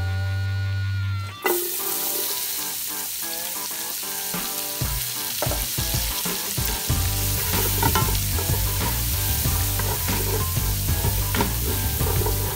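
Diced onion, carrot and celery sizzling in hot bacon fat in a stainless steel stockpot. The sizzle starts suddenly about a second and a half in and carries on steadily, with the clicks and scrapes of a wooden spoon stirring.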